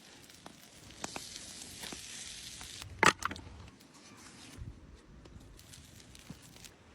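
Cooking fire crackling and hissing, with scattered small pops and one sharp, loud crack about three seconds in.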